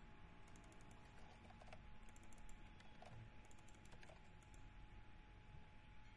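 Faint computer keyboard typing in three quick bursts of keystrokes.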